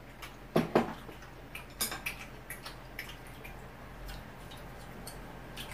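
Eating utensils clicking against dishes during a meal: two louder clicks in quick succession a little over half a second in, then scattered lighter clicks.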